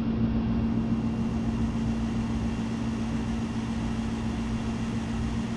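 Steady mechanical hum with a constant low tone under an even rushing noise, like a running motor or fan unit.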